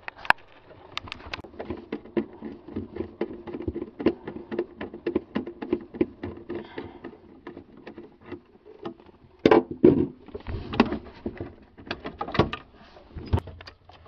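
A 1/4-inch screw being backed out of a refrigerator's evaporator fan housing with a driver: a rapid run of clicks over a low hum for several seconds. Near the end come louder knocks and rattles of the plastic fan shroud being worked loose.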